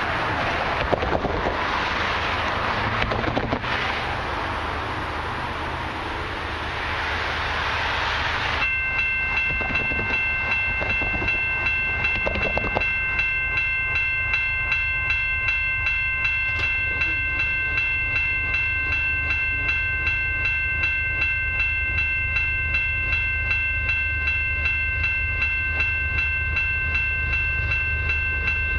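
Steady multi-tone ringing with a regular repeating beat, typical of a railway crossing bell, as a freight train approaches in the distance, with a low rumble underneath. For the first eight or so seconds a loud rushing noise covers everything and then cuts off suddenly.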